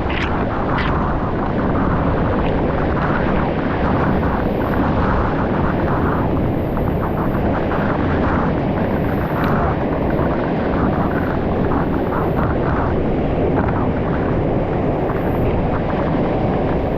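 Loud, steady rush of falling water from a waterfall, even and unbroken throughout.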